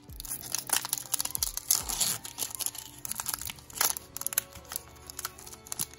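Foil Pokémon booster pack wrapper being torn open and crinkled by hand, a continuous run of sharp crackles, over faint background music.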